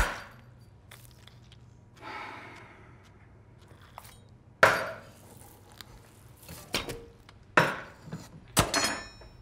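A series of sharp knocks of hard objects. A loud one comes at the start, then four more land about a second apart in the second half, the last trailing into a brief ringing clink like glass or crockery.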